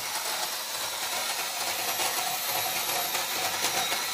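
A saw blade cutting through metal, a steady noise with no clear pitch; the blade is worn, with almost no teeth left.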